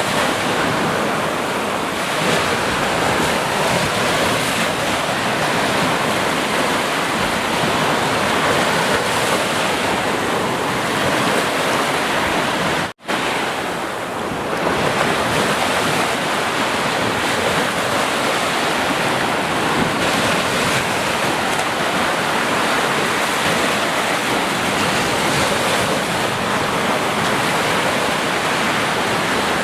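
Sea surf: waves washing onto a shore in a steady, dense rush, broken once about halfway through by a split-second dropout.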